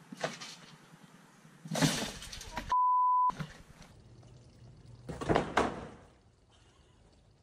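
A loud thud about two seconds in, then a short steady bleep like a censor beep; about five seconds in, a loud crash as a rope-hung wooden swing bed falls to the floor when its rope gives way.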